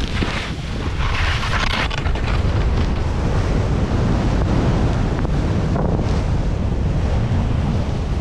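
Wind buffeting the microphone of a skier's point-of-view camera during a fast downhill run, with the rushing hiss of skis cutting through powder snow, strongest about one to two seconds in.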